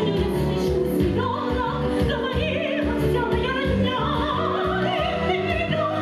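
Operetta song: a woman's operatic voice with wide vibrato comes in about a second in over an accompaniment with a steady beat.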